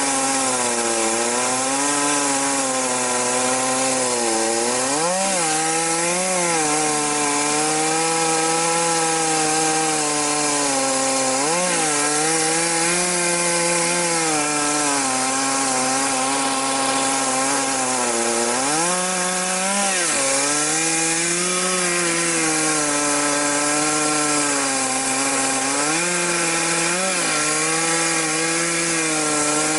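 Two-stroke chainsaw at full throttle, ripping a log lengthwise: a long continuous cut. The engine note sags under the load of the cut and lifts briefly several times.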